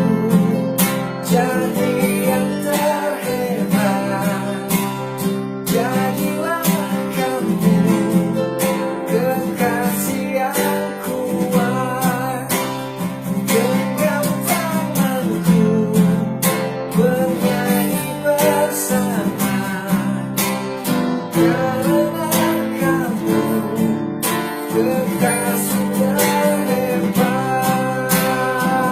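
Acoustic guitar strumming a song accompaniment, steady and continuous.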